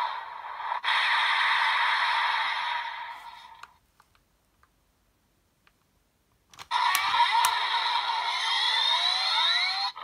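DX Desire Driver toy belt with the Den-O and Boost Raise Buckles playing its electronic sound effects through its small speaker. The first sequence fades out after about three and a half seconds. After a couple of plastic clicks from the buckle being worked, a new sequence with rising whooshing sweeps starts about two seconds later.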